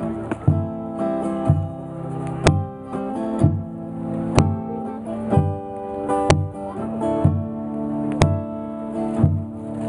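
Acoustic guitar playing a slow instrumental intro: ringing chords over a steady beat of low notes about once a second, with a sharper accent roughly every two seconds.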